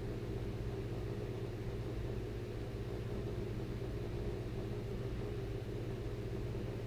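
Steady low background hum, unchanging throughout, with no distinct events.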